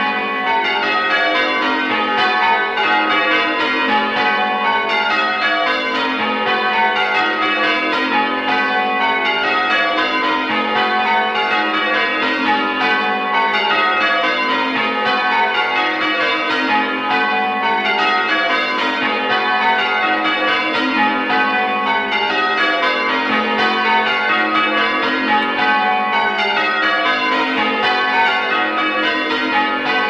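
Village church bells rung in rounds: the bells strike one after another down the scale, the descending run repeating over and over.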